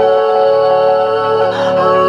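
Music with long held notes, played loud through a bare 12-inch Ahuja 300-watt speaker driver with no cabinet, driven by an Ahuja SPA-5000EM 500-watt PA amplifier; the notes change pitch about one and a half seconds in.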